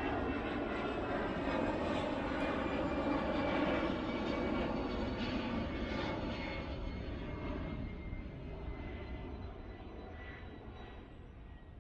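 Aircraft passing overhead: a steady engine drone that slowly fades away.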